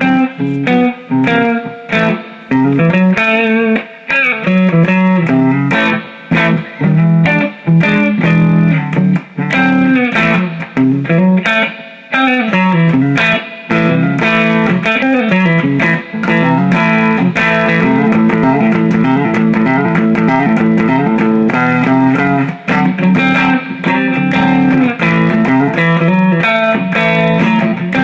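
Electric guitar played through a Fender Deluxe on its clean channel, on the neck pickup: a patent-number PAF-style humbucker that the owner takes for a 1986 Tim Shaw, mounted in a solid mahogany Gibson SG. Picked notes and chords in short phrases at first, then unbroken playing for the rest.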